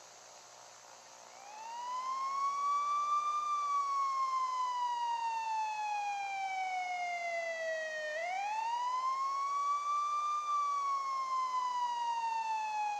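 A siren wailing in two slow cycles: the pitch climbs quickly, then sinks gradually over several seconds before climbing again. It starts about a second in and stops near the end, over a faint steady hum and hiss.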